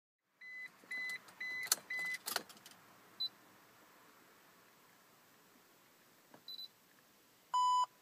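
Electronic beeps: four short, evenly spaced high beeps about half a second apart, a couple of sharp clicks, two faint single beeps, then two louder, lower beeps near the end. No engine is heard running or cranking.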